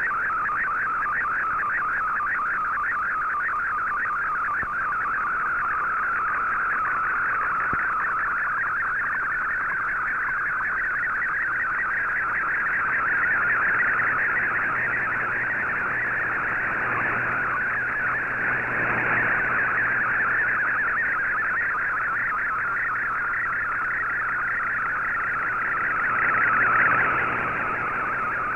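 Digital picture transmission from a shortwave broadcast, received on an Icom IC-R8600: a fast, continuously warbling data tone that Fldigi is decoding line by line into a colour image. Under it runs a faint steady hum.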